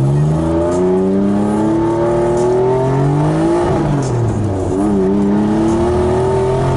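Mitsubishi 3000GT drift car's engine heard from inside the cabin, revving up under acceleration for about three seconds, dropping sharply near the middle, then climbing again and holding high revs.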